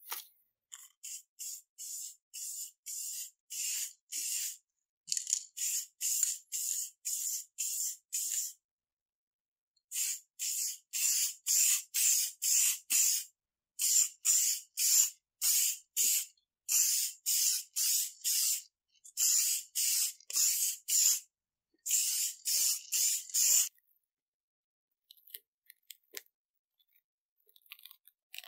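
An aerosol spray-paint can sprayed in short hisses, about two a second, in runs of several. The hisses get louder after the first few runs and stop a few seconds before the end. Faint crinkling of plastic wrap follows.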